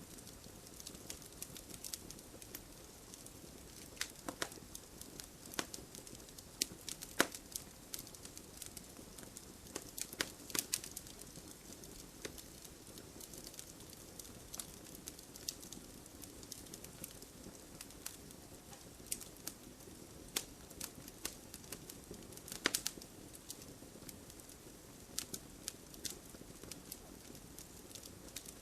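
Wood fire burning in a fireplace: irregular sharp crackles and pops, some in quick clusters, over a steady soft hiss.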